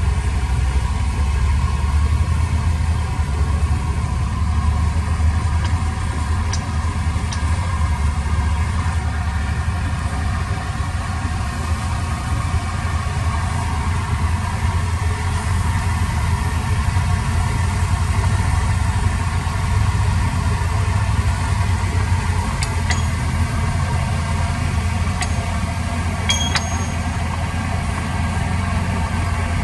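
Heavy machine's diesel engine running steadily at a low, even drone, with a few brief high squeaks in the last third.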